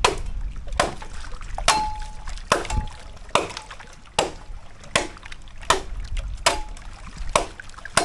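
A steady series of sharp knocks on bamboo poles in shallow water, about one every 0.8 seconds. A few knocks leave a short hollow ring, and water splashes around them.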